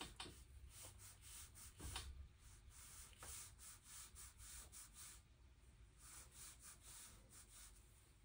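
Faint, quick strokes of a watercolor brush on paper, several a second.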